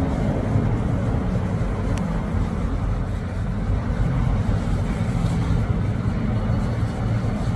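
Steady low rumble of a Boeing 787 Dreamliner airliner, with a faint hum running through it.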